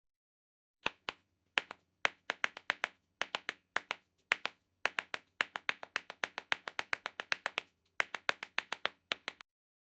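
Tap dance shoes striking a hard floor in a quick run of sharp metallic taps, in rhythmic clusters with brief pauses, starting about a second in and stopping shortly before the end.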